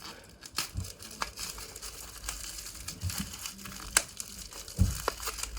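Packaging on a small bottle of speedcube lube crinkling and crackling with scattered sharp clicks as it is pulled at, being hard to open.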